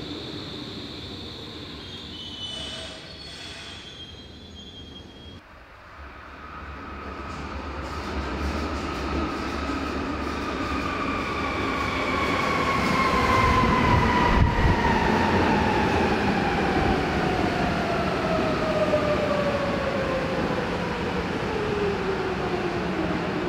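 Berlin U-Bahn train pulling in and slowing: its running noise builds over several seconds, and a whine from the traction motors falls steadily in pitch as the train brakes.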